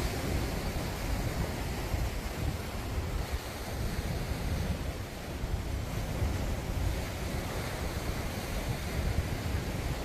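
Steady rushing of wind buffeting the microphone, mixed with the wash of sea surf against the shore.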